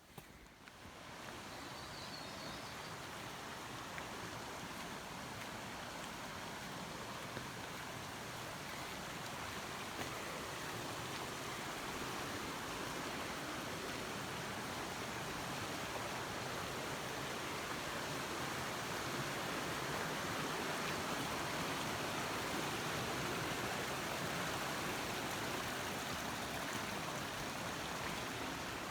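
Rushing water of a mountain stream, a steady rush that grows gradually louder through most of the stretch.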